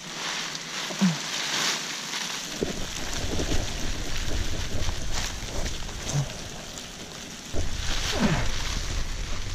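A mesh sack of live crawfish being shaken out onto a pile on grass: the mesh rustles and the crawfish tumble out with a dense, irregular patter of small clicks.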